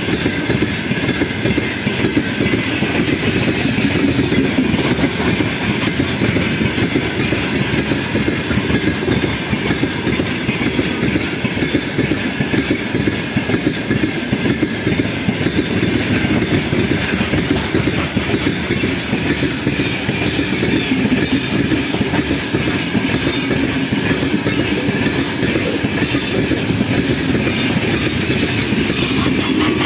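A long freight train of open-top gondola wagons rolling steadily past: a continuous rumble of steel wheels on rails, with a constant run of small wheel knocks and clatter.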